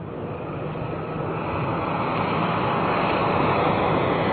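Aircraft engines droning over a rushing noise, growing steadily louder.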